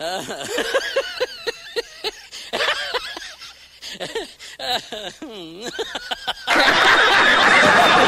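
A person laughing in short, rhythmic bursts that rise and fall in pitch. About six and a half seconds in, loud audience laughter and clapping cuts in, with voices.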